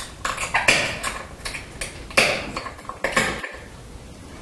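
Glass being pressure-flaked with a copper-tipped flaker on a small wooden anvil: a string of sharp ticks at irregular intervals as small flakes snap off the edge, the loudest about two seconds in.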